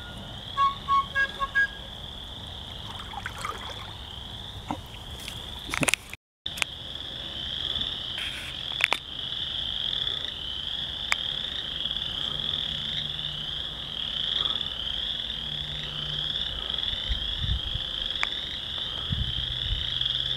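Dense chorus of western chorus frogs calling from a vernal pool: overlapping rising trills, kept up without a break. A few short, higher notes stand out in the first two seconds, and a few sharp clicks come around a third of the way in.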